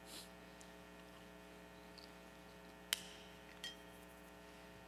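Steady electrical mains hum from the church sound system, with two sharp clinks a little under a second apart about three seconds in. The first clink is louder and briefly ringing: metal altar vessels such as the chalice touching at the altar.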